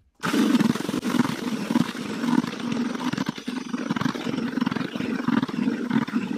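Cordless drill with a whisk paddle mixer running steadily at speed, churning groundbait and water in a plastic bucket; it starts abruptly and runs for about six seconds.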